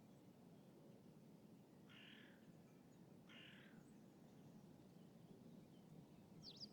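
A crow gives two harsh caws about a second apart, each lasting about half a second, faint over a steady low background rumble of lakeside city ambience. Near the end a small bird gives one quick high chirp.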